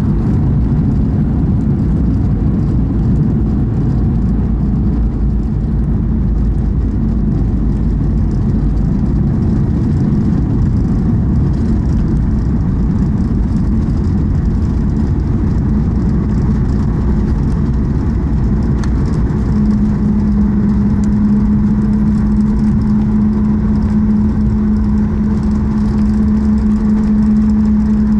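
Cabin noise inside a Boeing 737 MAX 8 on final approach: a steady loud rumble of airflow and CFM LEAP-1B engines. About two-thirds of the way in, a steady low hum comes in and holds.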